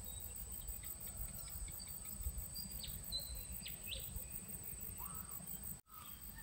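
Insects trilling in one steady, high-pitched rapid pulse, with a few short bird chirps and whistles in the middle; the trill cuts off suddenly near the end.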